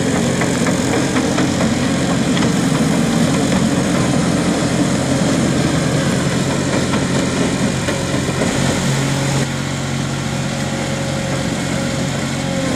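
Engine of a Mobitrac amphibious weed harvester running steadily as the machine drives on its tracks onto a tilt-deck trailer. The engine note shifts and the level drops slightly about nine seconds in.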